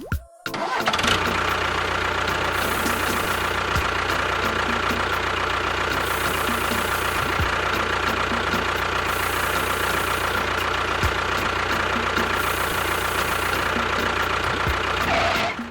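A motor running steadily with a constant hum, starting about a second in and cutting off shortly before the end.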